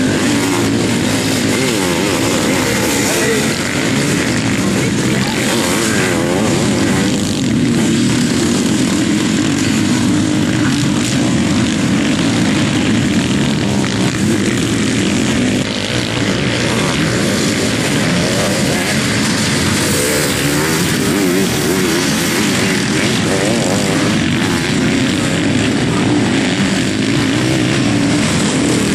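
Sidecar motocross racing outfits running on a dirt track, their engines loud and continuous, the pitch rising and falling again and again as they rev up and back off.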